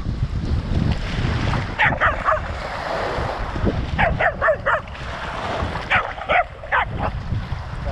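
Dog barking in three quick bursts of two to four short barks, about two, four and six seconds in. Underneath are a steady wind rumble on a dog-mounted camera and splashing surf as the dog runs through shallow water.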